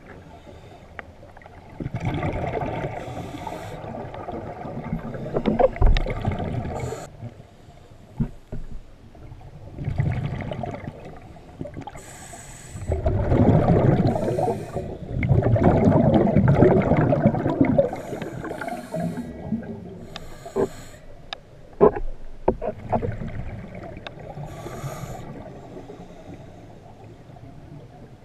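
Scuba diver breathing through a regulator underwater: long rushing bursts of exhaled bubbles every few seconds, with quieter breaths between and a few sharp clicks.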